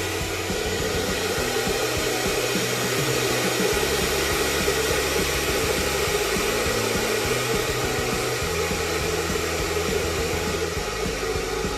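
Condensing combi boiler's fan blower running steadily at speed, a continuous air rush, driven by an inverter fan card on test. Background music with low bass notes plays underneath.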